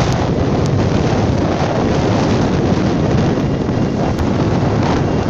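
Strong wind buffeting the microphone over the steady running of two diesel railcars pulling out of the station side by side.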